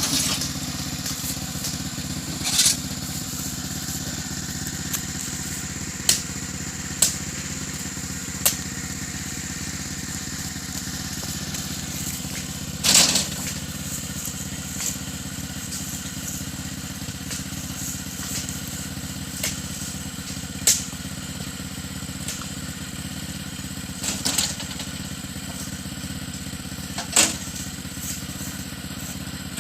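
The engine of a grakula, a small motorised carrier used to haul oil palm fruit bunches, running steadily. Sharp knocks or clatters sound every few seconds, about eight in all.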